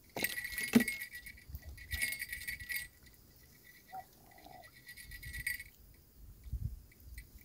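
Light metallic jingling and clinking in two stretches: a burst through the first three seconds, then a shorter one around five seconds in, with a few soft knocks.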